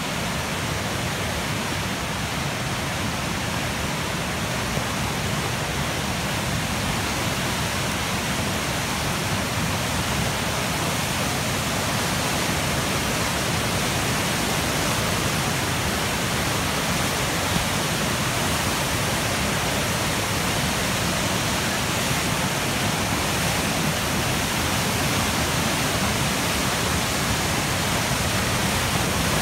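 Flooded river in full spate thundering past: a steady, unbroken rush of fast, turbulent floodwater.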